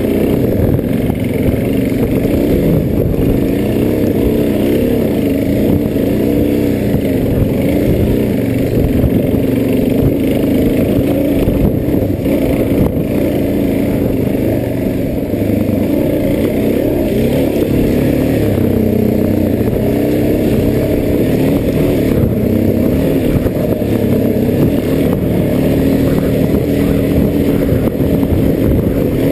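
Dirt bike engine riding a rough woods trail, revving up and down continually as the throttle is worked, its pitch rising and falling without a break.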